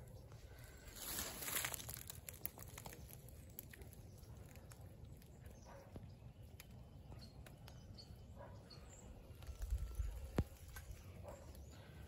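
Faint outdoor garden ambience. A rustle comes about a second in, and a few faint, short, high bird chirps follow. Near the end there is a low rumble on the microphone and a single sharp click.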